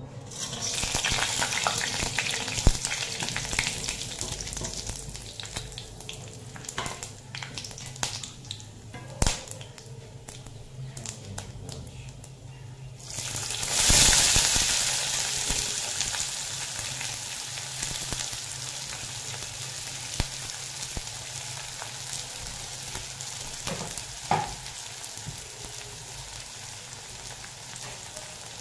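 Hot oil sizzling in an aluminium kadai as whole spices fry, with a few sharp clicks. About 14 seconds in, chopped onions go into the oil with a sudden louder burst of frying that settles to a steady sizzle.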